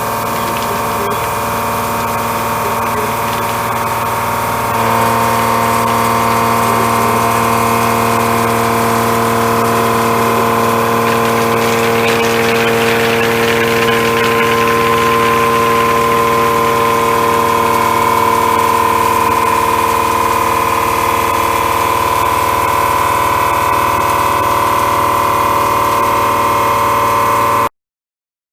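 Ceratizit Maximill A491 indexable milling cutter taking a cut in A36 steel on a CNC mill: a steady machining sound of several held tones. It steps louder about five seconds in, picks up a hiss for a few seconds midway, and stops abruptly near the end.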